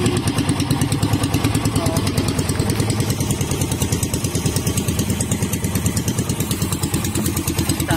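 Small fishing boat's engine running steadily, an even, rapid chugging with no change in speed.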